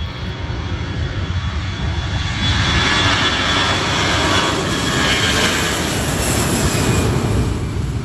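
Airplane engine noise, probably a dropped-in sound effect: a steady rushing noise with a faint high whine, starting suddenly, growing louder about two seconds in and easing off near the end.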